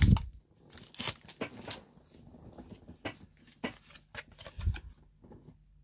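Handling a just-opened foil booster pack and its trading cards: scattered light rustles, clicks and taps as the cards are taken out and set down. A soft thump at the start is the loudest sound, with another about three-quarters of the way through.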